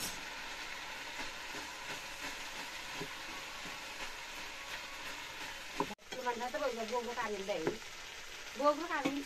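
Steady sizzling hiss of a pot of vegetables cooking over an open wood fire, with a metal ladle stirring in the pot. About six seconds in, the sound cuts briefly and then comes back less even.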